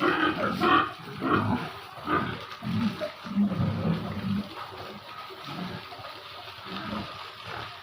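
Pigs grunting in a pen, a run of irregular low, rough calls that are louder in the first few seconds and then quieter.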